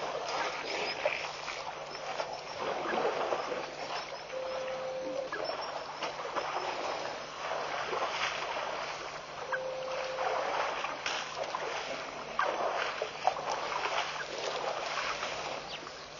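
Water splashing and sloshing unevenly as a herd of African elephants drinks and sprays water with their trunks, with two brief steady notes about five seconds apart.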